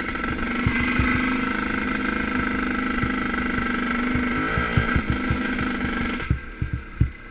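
ČZ two-stroke motocross motorcycle engine running steadily at low speed, close to the microphone, then cutting off abruptly about six seconds in. Low thumps run underneath and stand out once the engine stops.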